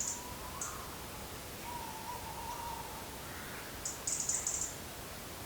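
Tawny owls hooting: long wavering hoots, one at the start and a longer one about two seconds in. Short high-pitched chattering bursts come right at the start and again about four seconds in.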